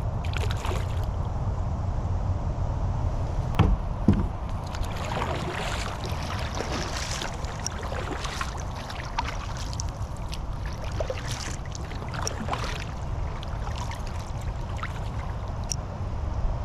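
Kayak paddling on a creek: water splashing and dripping off the paddle in scattered small splashes over a steady low rumble, with two sharp knocks about three and a half and four seconds in.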